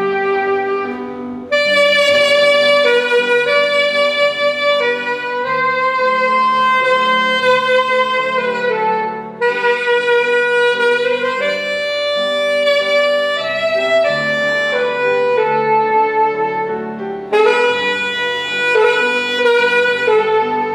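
Instrumental music: a melody of long held notes with a reedy, saxophone-like tone and no singing, in three phrases that each start abruptly.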